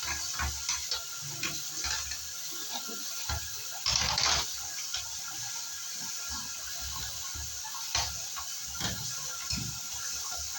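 Water splashing and dripping as a window-type air conditioner is rinsed, with irregular splashes and a louder short rush of water about four seconds in.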